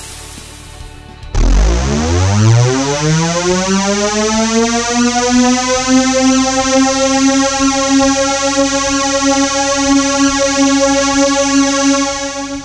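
Synthesizer sound effect: a low tone that glides upward in pitch for about three seconds, then holds one steady note until it fades out at the end.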